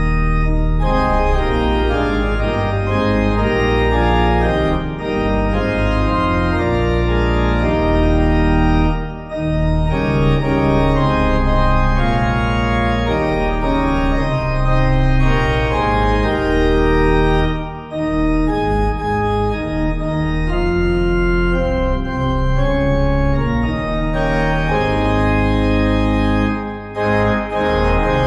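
Organ music: sustained chords over a moving bass line, with short breaks between phrases about every nine seconds.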